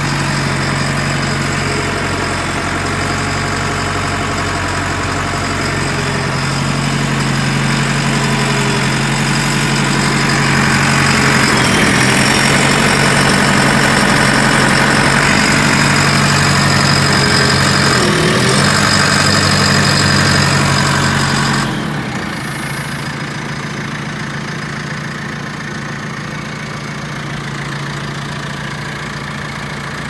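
JCB 3CX backhoe loader's four-cylinder diesel engine idling steadily. It grows a little louder toward the middle, then drops suddenly in level about two-thirds through.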